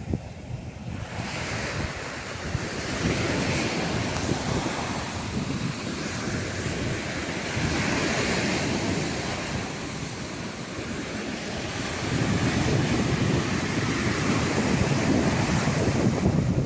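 Sea surf washing onto a beach, swelling and easing in slow waves and growing louder about three-quarters of the way in, with wind buffeting the microphone.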